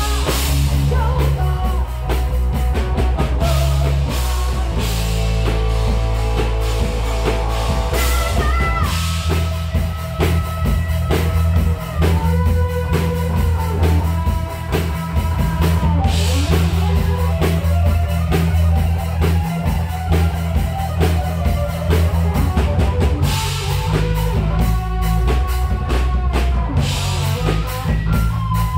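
A rock band playing live: drum kit keeping a steady beat under electric guitar and bass guitar, with held guitar notes over the top.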